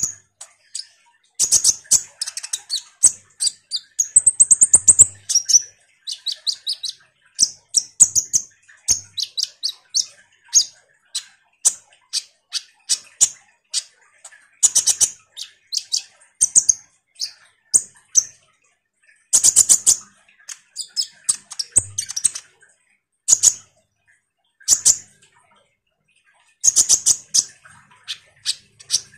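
Kolibri ninja (konin) sunbird singing a rapid, high-pitched chattering song of quick chirps and trills in short bursts, with brief pauses between phrases.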